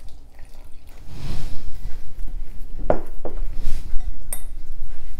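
Water poured from a glass measuring cup into flour in a glass mixing bowl, then a few sharp clinks and knocks against the glass bowl, one ringing briefly, as the flour and water are mixed by a gloved hand.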